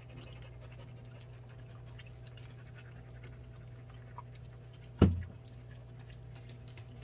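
Jindo dog panting, with one sudden loud thump about five seconds in.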